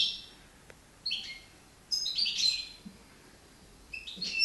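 European goldfinch singing in short bursts of high, quick notes, four phrases with pauses between them. It is a young bird of the year just beginning to sing.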